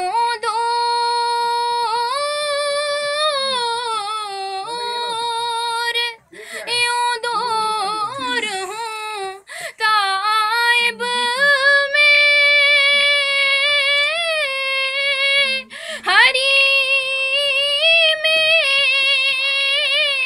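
A woman sings a naat, an Urdu devotional poem in praise of the Prophet, unaccompanied. She holds long, high, ornamented notes that waver in pitch, with short breaks between phrases about 6, 9 and 16 seconds in.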